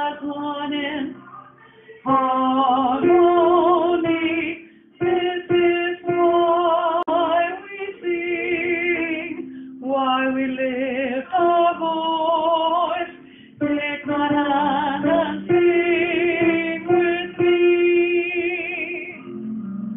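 Choir practice track: a voice sings with vibrato in phrases a few seconds long, pausing briefly between them, over steady musical accompaniment.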